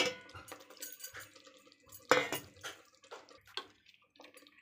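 Steel spoon knocking against a steel plate and the metal cooking pot while spice powder is tipped in: a sharp clink at the start, another about two seconds in, then a few lighter taps.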